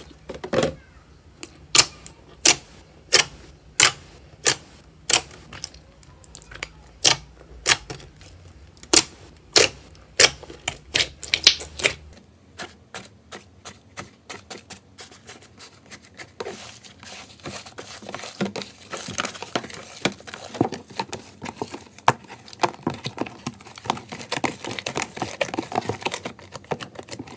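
Thick slime squeezed and poked by hand, giving sharp clicking pops about once or twice a second. Partway through, this gives way to slime studded with small beads being pressed flat under the palm, a denser run of small crackling clicks.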